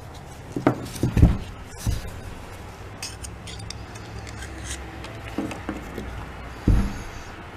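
Small metal parts of an air impact wrench clinking and knocking as it is handled and reassembled: a few separate clinks and taps, the loudest about a second in and again near the end.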